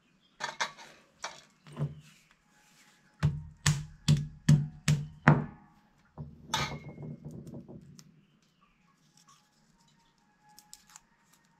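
A hand-held stone knocking down on jackfruit seeds against a hard floor to crack their shells: a run of about six sharp knocks, roughly two a second, with lighter taps and shell crackling before and after.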